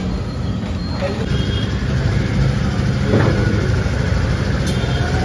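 Steady low mechanical rumble of a motor or engine running.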